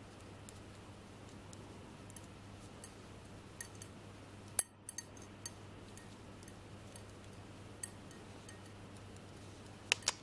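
Metal double-pointed knitting needles clicking and tapping lightly against each other as stitches are worked, scattered irregular ticks with a sharper click about halfway through and a couple more near the end, over a faint steady hum.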